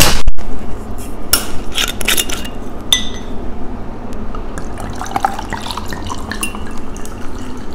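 A bottle of watermelon sangria being opened with a sharp noise at the start, then a few knocks and a short ringing glass clink about three seconds in. After that comes the gurgle of the sangria being poured into a glass.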